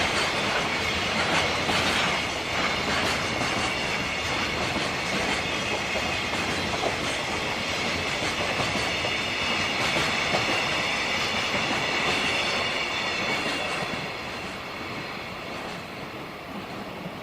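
Freight train wagons rolling past, their wheels clattering rhythmically over rail joints, with a high wheel squeal. The sound fades away near the end as the train moves off.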